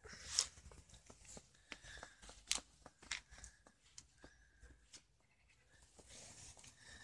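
A burning toy model car crackling: faint, irregular clicks and pops from the fire. There is a brief hissing swell about a third of a second in and another near the end.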